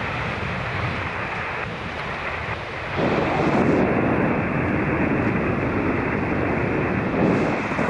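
Steady hiss of band noise from an HF transceiver's receiver on the 20-metre band, with no station coming through. The hiss gets louder about three seconds in.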